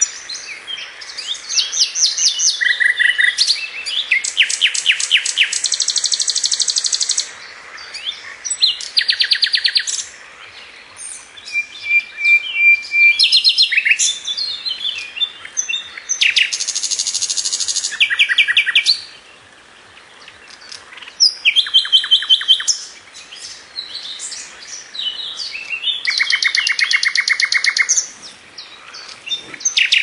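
Songbird singing in a series of loud phrases: fast trills of rapidly repeated notes and clear whistles, with short pauses between phrases and one held high note about twelve seconds in.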